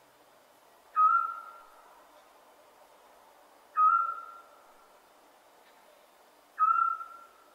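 Scops owl giving its single whistled note three times, evenly spaced about three seconds apart, each note short and fading away after it.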